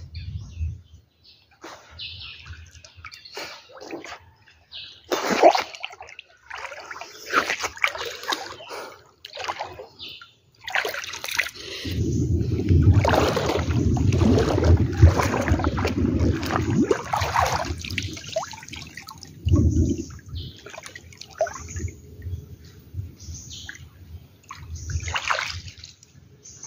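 Floodwater splashing and sloshing as people wade and swim through it, in irregular surges with the heaviest sloshing in a long stretch around the middle.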